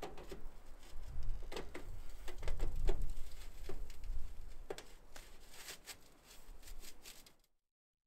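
Metal wood-stove pipe sections knocking and clinking as they are fitted together and seated in the tent's stove jack, a handful of sharp knocks spread through, over wind rumbling on the microphone. The sound cuts out near the end.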